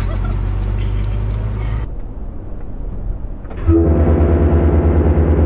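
Truck engine running with a low rumble; about three and a half seconds in it becomes much louder, a steady pulsing drone.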